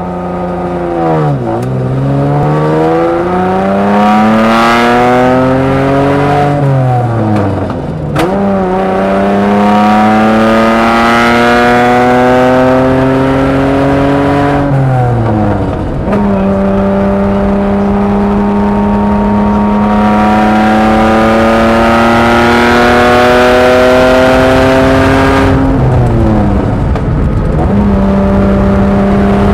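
Lamborghini LM002's V12 engine pulling up through the gears. The note climbs steadily and drops sharply at each of several upshifts, then holds a steady pitch while cruising between them. It is heard from the truck's open rear bed.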